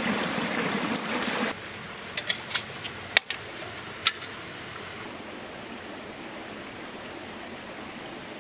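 Rushing water that cuts off abruptly after about a second and a half, then a few sharp clicks or knocks over the next two seconds, the loudest about three seconds in, over a steady quieter hiss.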